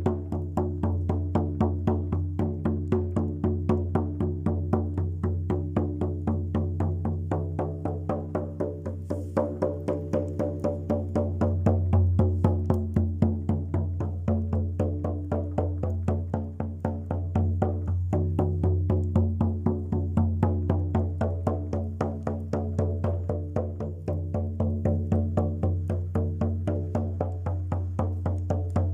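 Rhythmic ritual music: a steady low drone with shifting overtones over regular struck beats, about two to three a second.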